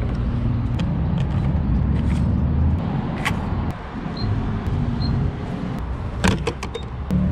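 A fuel pump's keypad beeping twice as its buttons are pressed, then a cluster of clicks and knocks as the fuel nozzle is taken from its holster, over a steady low rumble of vehicle traffic.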